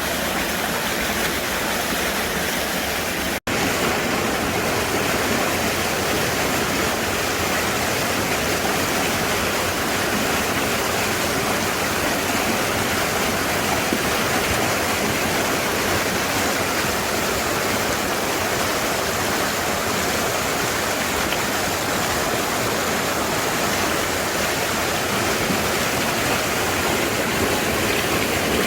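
Mountain valley stream rushing powerfully and steadily over rocks. The water sound cuts out for an instant about three and a half seconds in, then carries on unchanged.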